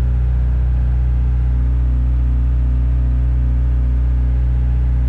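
Cat E70B excavator's diesel engine running at a steady, even speed, a constant low drone heard from inside the cab while the boom is worked on the hydraulic controls.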